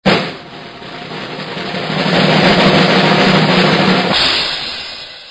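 A loud drum roll that starts with a hit, swells louder over about two seconds, and ends about four seconds in with a bright crash that rings and fades away.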